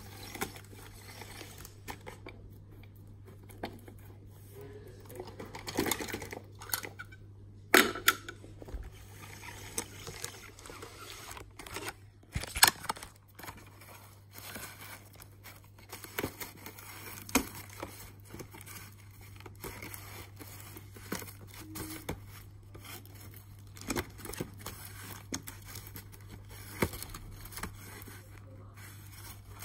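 A homemade paper-and-card model garbage truck being handled: scattered taps, clicks and paper rustling as its parts and paper scraps are moved by hand. Two sharper knocks come about eight and twelve and a half seconds in, over a steady low hum.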